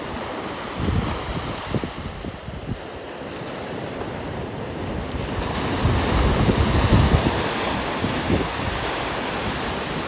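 Ocean surf breaking and washing up the beach, with wind buffeting the microphone in low gusts. About halfway through a wave breaks and rushes in, the loudest part.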